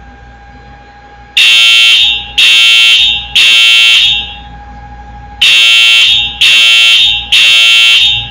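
Wheelock EHS-DL1 fire alarm horn sounding a three-pulse code: three loud, buzzy blasts about a second apart, a pause, then three more.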